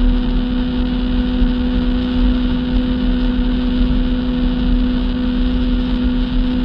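Jet ski engine running at a steady pitch while under way, with a rough low rumble of wind on the microphone underneath.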